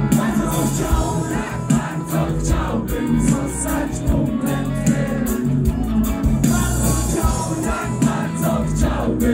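Rock band playing live through a concert PA, with singing over guitars, keyboard and a steady drumbeat.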